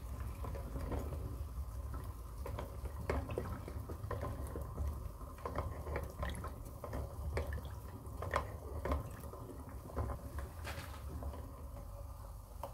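A paint brush stirred and jabbed in a glass jar standing in a saucepan of hot water, giving irregular clicks and knocks of the brush and jar against glass and the pan over a low steady rumble. The knocking thins out near the end.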